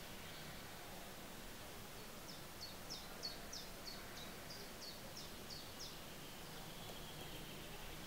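A small songbird singing faintly: a run of about a dozen short, high, downward-slurred notes, about three a second, starting about two seconds in and stopping near six seconds, over a steady outdoor hiss.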